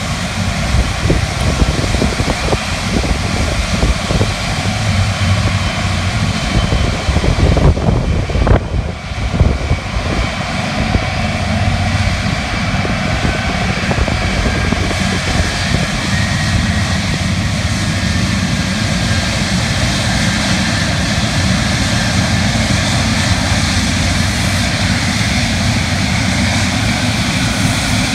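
Jet engines of a British Airways Boeing 747 (four Rolls-Royce RB211 turbofans) running at taxi thrust: a steady loud rumble with a high turbine whine on top. There is a short burst of buffeting on the microphone around eight to nine seconds in.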